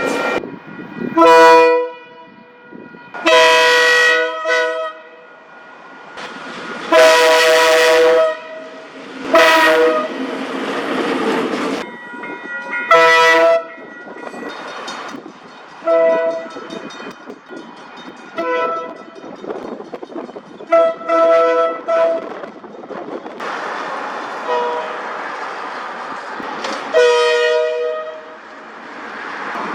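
Train horns sounding about a dozen blasts, some short and some held for a second or more, each a chord of several steady notes. Between the blasts is the noise of passing trains on the rails.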